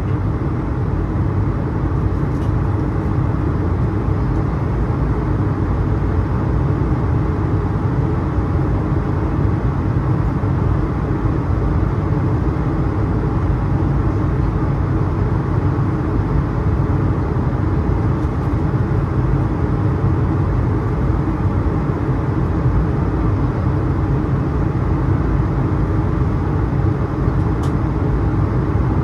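Steady cabin noise inside an Airbus A220-300 in flight: a continuous low engine drone under the rush of air past the fuselage. There are two faint ticks, one near the start and one near the end.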